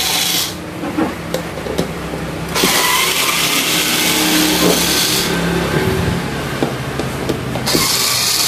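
A small motor running, its pitch shifting, over a hiss that comes and goes, with a few light clicks of screws and metal parts being handled.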